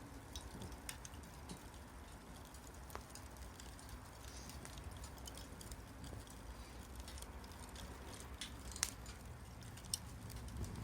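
Small wood fire crackling, with scattered sharp pops and ticks over a low steady rumble; two louder pops near the end.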